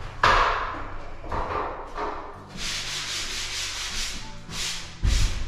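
Drywall joint compound around a window being sanded by hand: a series of irregular scratchy rubbing strokes, one of them longer in the middle. A dull thump about five seconds in.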